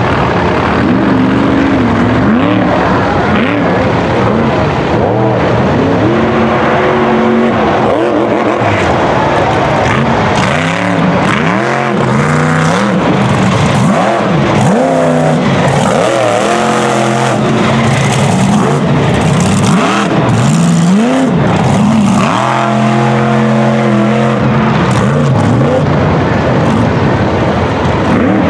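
Mega truck's engine revving hard again and again, its pitch climbing and dropping over and over as the truck is driven across a dirt course, held steady at high revs for a few seconds at times.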